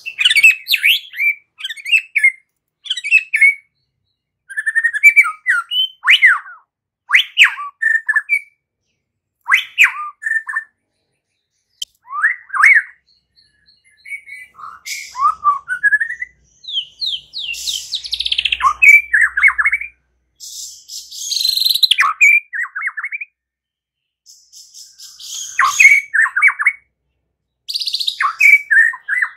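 White-rumped shama (murai batu) singing: a run of short, varied whistled phrases with quick up-and-down sweeps, separated by brief pauses. Harsher, buzzy notes come in about halfway through and again near the end.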